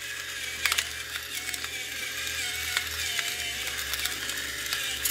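Cuisinart electric salt mill grinding coarse salt crystals: a steady small-motor whine whose pitch wavers as it works, with scattered crackles of salt breaking.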